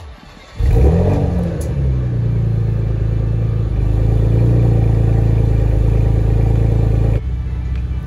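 Porsche Macan GTS twin-turbo 3.0-litre V6 running, heard from behind its quad-tip sport exhaust. It comes in suddenly about half a second in with a short rise and fall in revs, then settles to a steady idle. It grows a little louder near the middle with the switchable exhaust valves open, and drops back in level shortly before the end with them closed.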